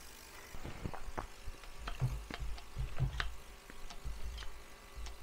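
Scattered sharp clicks and small knocks, irregularly spaced, from metal work on a Kawasaki Zephyr 550's aluminium swingarm: the steel pivot axle is seated and a grease gun's hose coupler is fitted to the pivot's grease nipple.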